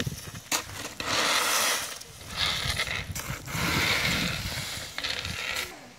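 Plastic leaf rakes scraping piles of dry leaves across a concrete driveway, the leaves rustling, in about four strokes of under a second each, with a sharp click about half a second in.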